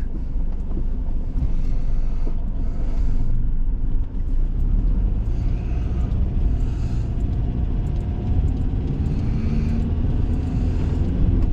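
A car running, a steady loud low rumble, with a faint tone rising near the end.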